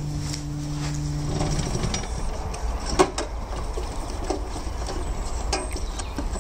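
Compact tractor's diesel engine running at idle as a low, steady rumble, with a few sharp clicks and knocks as the driver climbs down. A steady hum at the start stops about a second and a half in.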